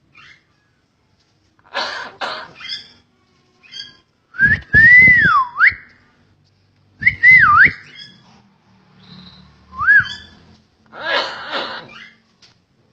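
Hill myna whistling: three swooping whistles, each rising and then dipping, the first the longest. Harsh, breathy calls come about two seconds in and again near the end.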